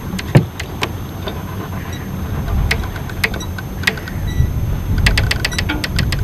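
A Heard 28's bowsprit tackle clicking and knocking as its line is worked hand over hand to lower the bowsprit. There is a quick run of clicks about five seconds in.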